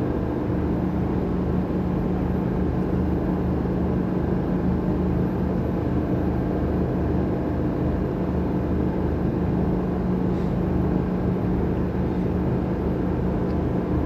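Volvo Penta IPS500 diesel drive of a Sessa C42 motor cruiser running steadily at planing speed, heard from the enclosed helm as a muted, unchanging low drone.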